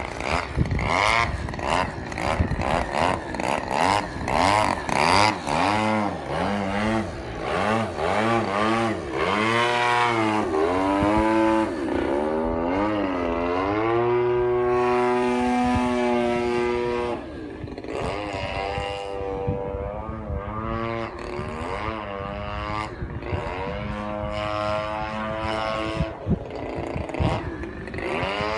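Factor 30cc RC aerobatic airplane's gas engine and propeller, the pitch swinging quickly up and down with throttle bursts and passes, then held steady for a few seconds near the middle before varying again.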